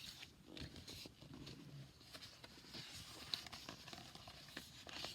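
Faint paper rustling and small clicks of a picture book being handled and its pages turned, with one sharper tick a little past the middle.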